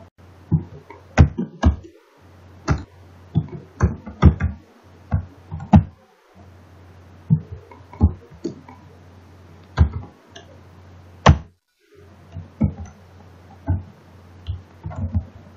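Computer keyboard keystrokes: irregular sharp taps in short runs with brief pauses, over a steady low electrical hum.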